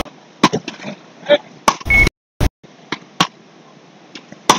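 Beach paddles striking a small rubber ball in a fast rally: a string of sharp cracks, some half a second apart, some a second. A short electronic beep sounds about two seconds in.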